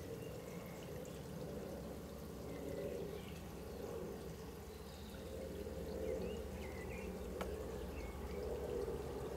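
Twin-engine jet airliner flying high overhead: a steady low rumble of its engines.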